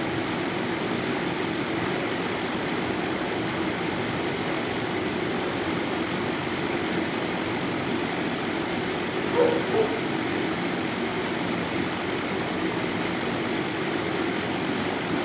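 Steady hum and hiss of the kennel room's ventilation, with two brief higher-pitched sounds about nine and a half seconds in.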